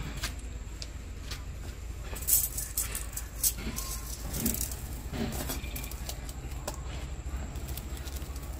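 Small metal parts of a TV being dismantled, clinking and rattling, with scattered clicks; the loudest rattles come about two and a half and three and a half seconds in, over a steady low hum.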